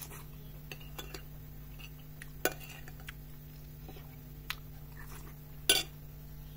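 Cutlery and dishes clinking: scattered light clinks of utensils on a plate, with two sharper clinks, one about two and a half seconds in and one near the end.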